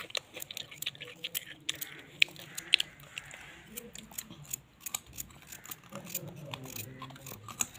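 Small kitchen knife cutting through raw red carrots held in the hand, a quick run of crisp cuts and snaps, busiest in the first few seconds.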